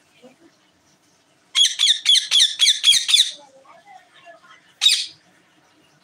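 Rose-ringed parakeet squawking: a rapid run of about ten harsh, high shrieks at about five a second, then one more shriek about a second and a half later.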